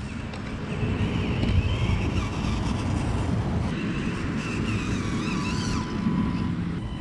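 Axial SCX24 micro crawler's small electric motor and gearbox whining, the pitch wavering up and down with the throttle, over a steady low rumble of wind on the microphone.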